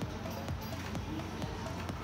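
Background music track.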